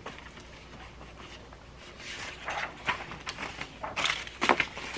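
Large sheets of paper rustling as they are handled and leafed through, faint at first and growing louder after about two seconds, with a few sharper crackles near the end.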